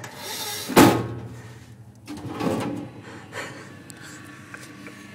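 Food lift (dumbwaiter) door shutting with a loud bang about a second in, followed by a clattering rattle and a lighter knock, heard from inside the small lift car. A low steady hum follows as the lift sets off.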